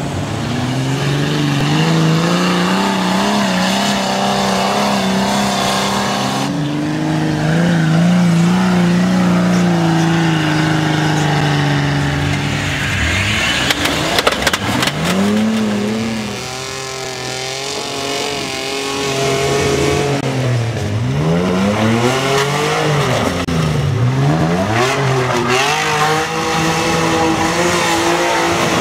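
Off-road 4x4 trial vehicle's engine revving under load, its pitch repeatedly rising and falling with the throttle. There is a brief clatter of knocks about halfway through.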